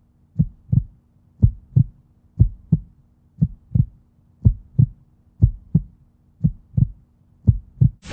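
Heartbeat sound effect in the soundtrack: pairs of low thumps, lub-dub, about once a second, over a faint steady hum.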